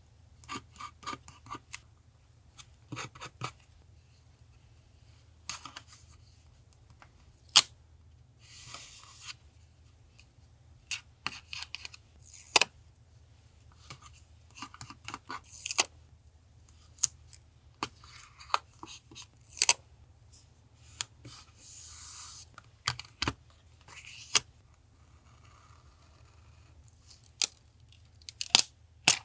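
Paper-collage crafting: scattered sharp snips and clicks of scissors cutting paper, with two longer stretches of paper rustling or rubbing, about a third of the way in and again about three quarters in.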